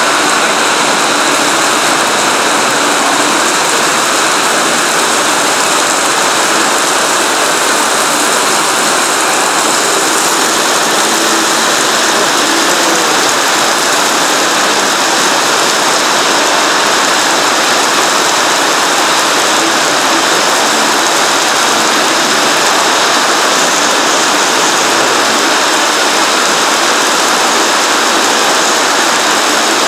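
Heavy downpour pelting a flooded concrete yard: a loud, steady, dense hiss of rain falling into standing water, with no let-up.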